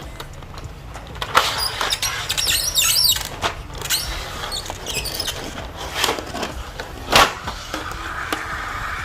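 Keycap set packaging being handled and opened: rustling and scraping, two sharp knocks about six and seven seconds in, and a steadier scrape near the end.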